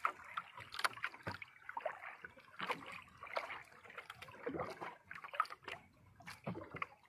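Water lapping and slapping against the hull of a small outrigger boat, with irregular light clicks and knocks.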